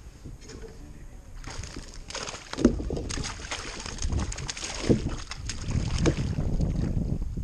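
Water splashing as a hooked largemouth bass thrashes at the surface beside a kayak during the fight, louder from about two and a half seconds in, with three sharp splashes or knocks.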